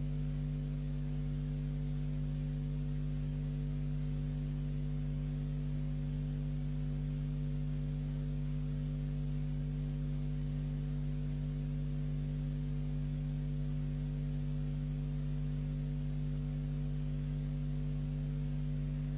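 Steady low electrical mains hum with a buzz over a constant tape hiss, left on a cassette transfer where the recording has no speech or music.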